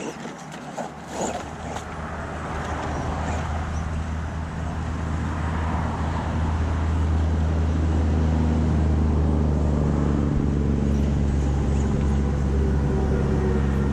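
Low, steady engine hum of a road vehicle, growing louder over the first half and then holding, with a couple of sharp clicks about a second in.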